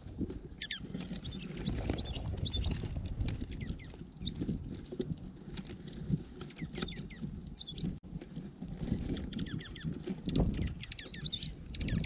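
Small songbirds at a feeder, dark-eyed juncos and sparrows, giving short high chirps in scattered bursts, thickest near the start and in the last few seconds. Under them is a steady low rumble of storm wind on the microphone.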